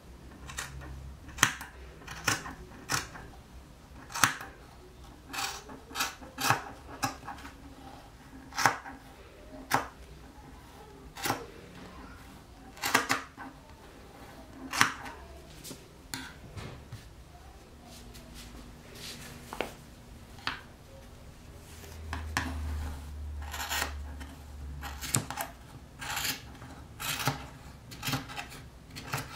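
Scissors snipping through a crocheted scarf's yarn fringe to trim it even: sharp, irregular snips, some in quick pairs, with a low rubbing for a few seconds past the middle.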